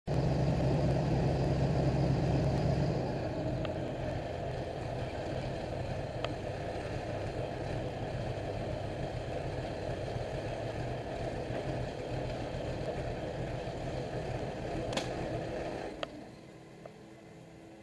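Airboat engine and propeller running steadily at low speed, easing off about three seconds in and dropping to a much quieter idle near the end, with a couple of sharp clicks just before the drop.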